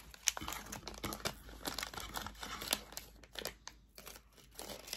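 Small clear plastic bead packets crinkling and rustling as they are handled, with a run of light, irregular crackles and ticks.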